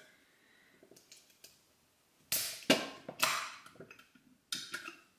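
A few short clinks and scrapes of bottles and glassware being handled on a kitchen counter while a drink is mixed, in two clusters, about two to three and a half seconds in and again near the end.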